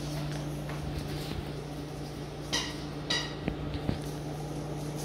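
Puppies chewing and tugging at rope and rubber toys on a tile floor: soft scuffs and small clicks, with two short high-pitched puppy squeaks a little past halfway, over a steady low hum.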